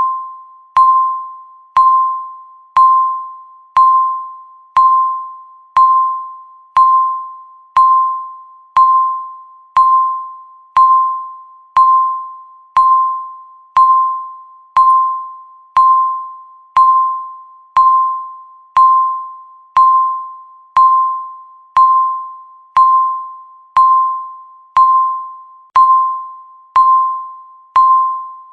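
Countdown timer beep sounding once a second, each one a single mid-pitched chime-like tone that starts sharply and fades away before the next, ticking off the seconds left.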